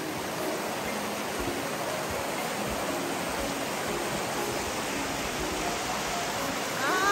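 Shallow mountain river (the Kawakami River) rushing over stones, a steady rush of water. A brief sliding pitched sound comes right at the end.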